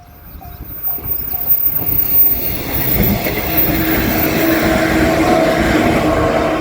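Electric train approaching and passing a level crossing, its rail noise building over the first two seconds and then staying loud and steady, with a steady tone coming through in the second half. The crossing bell's ding-ding, about two and a half strikes a second, is heard at the start and is drowned out as the train arrives.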